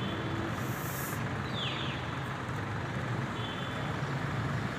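Steady street traffic noise, a low rumble of vehicle engines and road noise, with a short falling chirp about a second and a half in.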